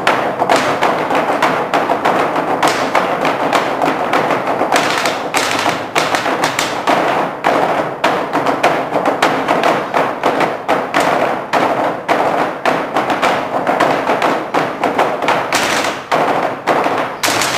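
Several players beating drumsticks on wooden tabletops in fast, rhythmic ensemble patterns, many strikes a second.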